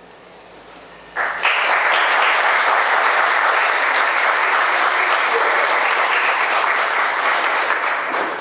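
Audience applauding, breaking out suddenly about a second in after a brief hush and holding steady.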